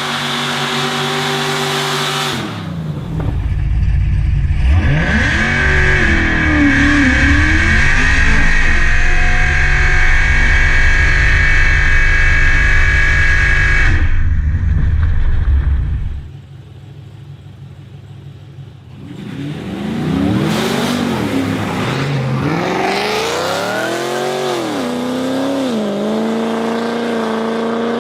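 Race car engines revving and accelerating at full throttle, with a heavy low rumble for most of the first half. The sound drops away sharply about 16 seconds in, then engine revving with rising and falling pitch picks up again.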